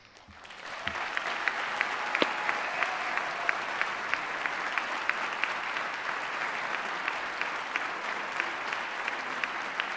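Audience applauding in a hall, swelling up within the first second and then holding steady, with single sharp claps standing out from the wash.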